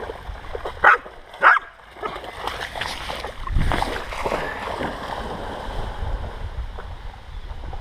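Two short, loud dog barks about a second in, then splashing as a Belgian Tervuren shepherd dog runs through shallow flood water and plunges back in to swim.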